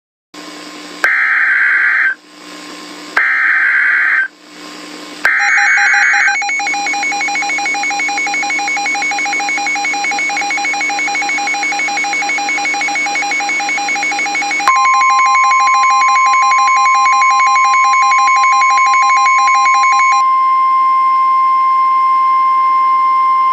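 Emergency Alert System header: three short bursts of screechy digital data tones, then a rapidly pulsing electronic alert signal. A steady single-pitch warning tone comes in partway through and carries on alone after the pulsing stops.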